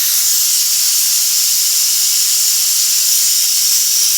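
Pressure cooker at full pressure, its rotating valve venting a steady, loud hiss of steam.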